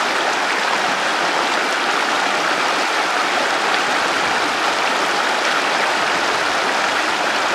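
Shallow river running over rocks in small rapids: a steady, even rush of water.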